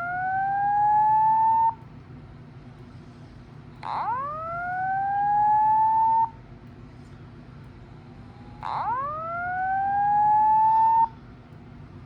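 Fire alarm speaker sounding the slow whoop tone of a voice evacuation message: a tone rising in pitch for about two and a half seconds, then cutting off. The first whoop is already under way, and two more start about four and nine seconds in.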